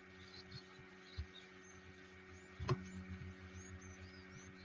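Faint steady electrical hum, with a single sharp click about two and a half seconds in, likely a computer mouse button, and a soft low thump a little earlier.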